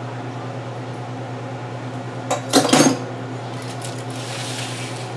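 A fork clinking and clattering against a small glass bowl of beaten egg, in one short burst about two and a half seconds in, over a steady low hum.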